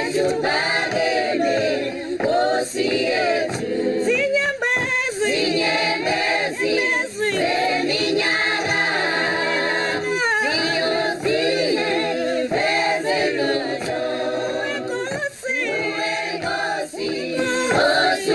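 A choir singing a cappella, in short phrases that rise and fall.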